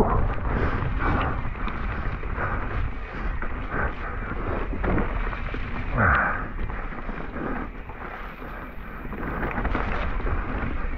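Mountain bike riding a wet, muddy trail: a steady rumble of tyres and wind buffeting on the camera microphone, with frequent knocks and rattles from the bike over rough ground.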